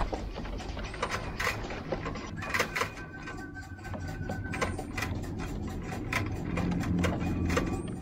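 Racing pigeons' feet and the loft trap making irregular sharp clicks and taps as the birds walk across the felt roof and push through the trap into the loft, with a low hum underneath.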